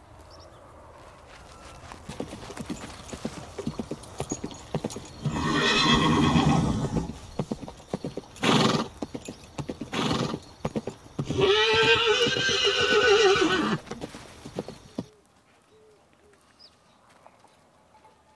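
Horse hooves clip-clopping, growing busier over the first few seconds, with horses neighing: a first neigh about five seconds in, two short loud bursts after it, then a long wavering whinny. The sound cuts off suddenly about three-quarters of the way through.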